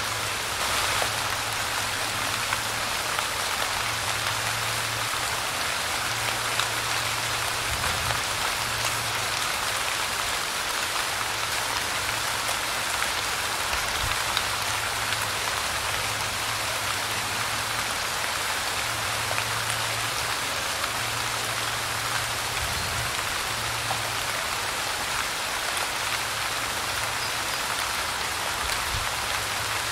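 Light rain falling steadily: an even hiss of many small drops pattering on a surface.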